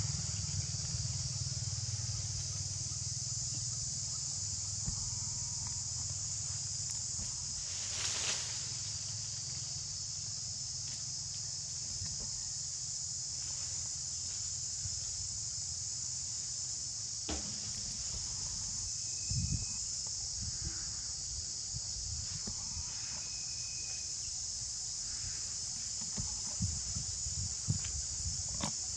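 A steady, high-pitched chorus of insects droning without a break, over a low rumble, with a few brief clicks and rustles.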